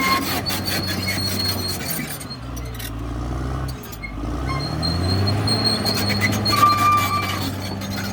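CAT D6R XL bulldozer's diesel engine running under load; about two seconds in it drops in speed, then revs back up a couple of seconds later. Short high-pitched metallic squeals from the machine come at the start and again near the end.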